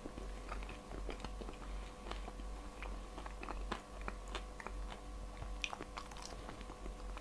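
A person chewing a mouthful of Olivier-salad roll: faint, irregular small clicks of chewing, over a steady low hum.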